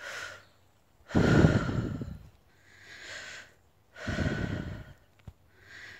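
A woman taking slow, deep breaths in and out, about two full breath cycles. Two loud breaths of about a second each alternate with fainter ones.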